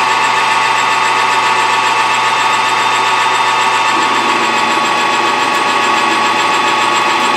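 Metal lathe running steadily with a constant machine whine. A lower hum joins about four seconds in.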